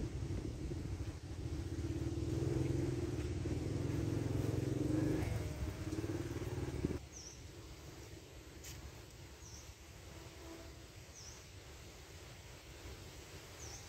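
A motor vehicle engine running steadily close by, with a low, even hum, cutting off abruptly about halfway through. After that there is a quieter outdoor background with a few short high chirps.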